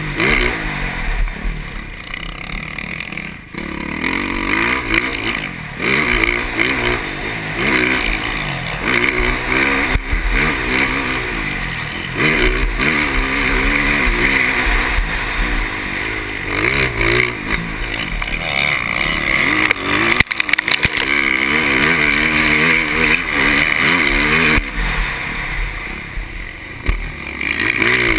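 KTM motocross bike's engine at full race pace, revving up and down over and over, its pitch climbing and dropping as the rider works the throttle and gears around the track, heard from on board the bike.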